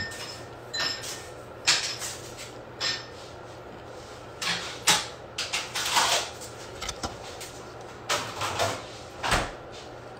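Scattered knocks and clicks, about one a second, with a few short rustling bursts between them: small objects being handled close to the microphone.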